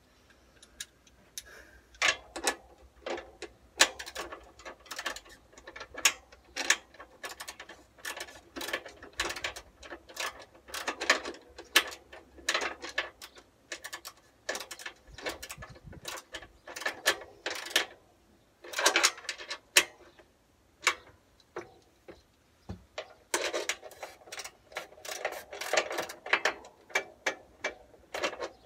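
Bursts of quick metallic clicking from a ratchet spanner driving bolts into the metal frame of a tractor seat, with knocks and rattles of the steel parts being handled between runs.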